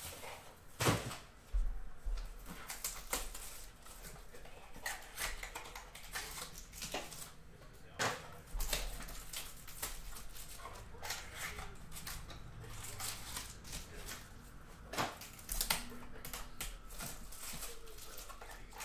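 Foil card-pack wrappers crinkling and being torn open while cards and packaging are handled: an irregular run of sharp crackles and rustles, with louder crackles about a second in, around the middle, and again near the end.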